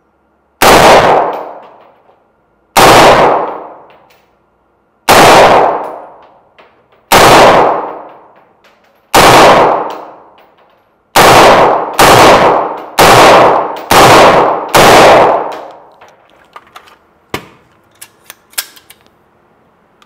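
Ten shots from a semi-automatic 5.56×45mm carbine with an 11.5-inch barrel, each ringing out in the echo of an indoor range. The first five come about two seconds apart, the last five about a second apart. A few light clinks follow near the end.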